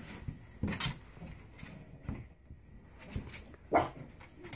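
Pug puppies making small whimpers and yips amid scattered short scuffs, with one louder short sound a little before the end.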